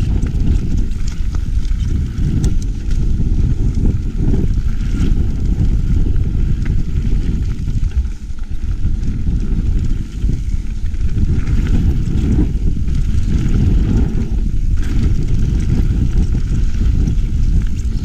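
Mountain bike riding over a gravel forest trail: a continuous rumble of tyres and wind on the microphone, with scattered clicks and rattles from the bike over stones.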